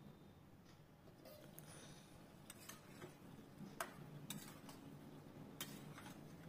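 Light metallic clinks and taps of a steel spoon against a stainless-steel kadai as a thick cabbage and potato sabzi is stirred. About a dozen faint, short clicks come irregularly over a faint low hum.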